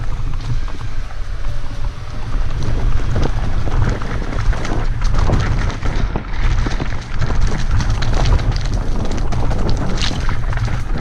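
Wind buffeting a GoPro microphone on a mountain bike being ridden along a rough trail. Under it, a steady heavy rumble from the tyres and frequent sharp knocks and rattles from the bike.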